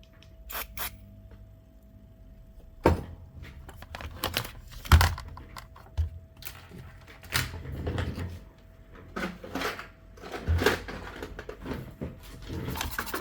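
Clicks, knocks and short rubbing sounds of tools and a bottle being handled on an electronics repair bench, the loudest knock about five seconds in. The rubbing is typical of a toothbrush wetted with alcohol being readied for scrubbing a motherboard, and a faint steady tone runs underneath.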